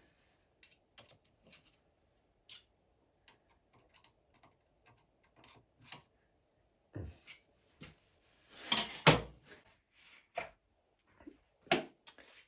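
Scattered light clicks and knocks of small metal tooling being handled and fitted on a lathe's milling attachment, with a louder cluster of knocks about nine seconds in and another sharp knock near the end.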